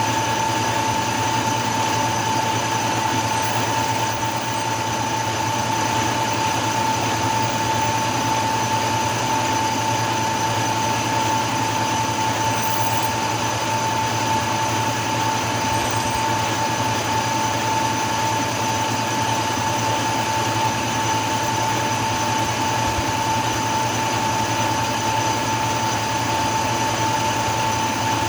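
Machine-tool spindle running steadily with a constant high whine while a drill bores out the stripped rocker-stand bolt hole in an aluminum Ford FE cylinder head.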